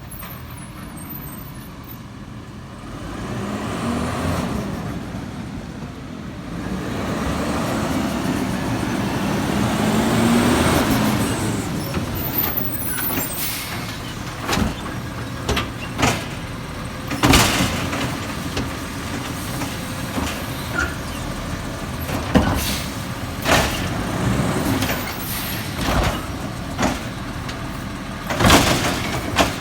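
Garbage truck picking up trash: its engine revs up, rising slowly in pitch for several seconds, then a run of about a dozen sharp metal clanks and bangs follows as the load is handled.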